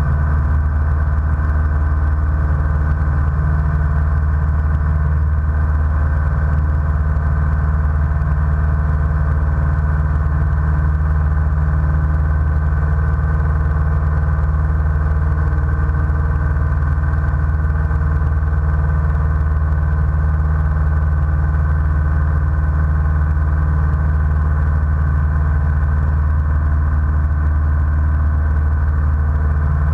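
Light single-engine airplane's piston engine and propeller running steadily at an even pitch, heard from inside the cockpit.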